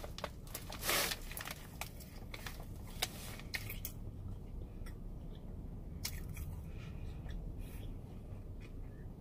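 Biting into and chewing a glazed doughnut and fried chicken sandwich, with scattered short wet clicks and a louder crunch about a second in. A low steady hum runs underneath.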